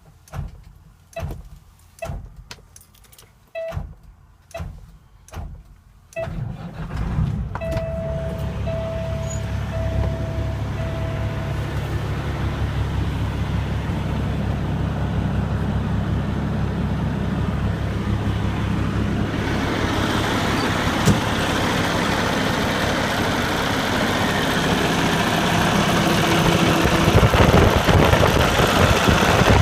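Cummins ISX inline-six diesel in a Peterbilt 388 highway tractor starting up about six seconds in and then idling steadily. Before it starts there is a string of separate knocks, and just after it catches a beeping tone sounds four times.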